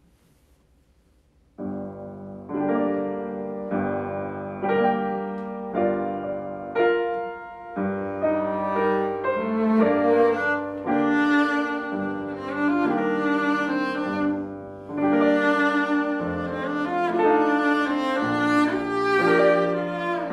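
Cello and grand piano playing a piece together. The music starts about a second and a half in, after near silence.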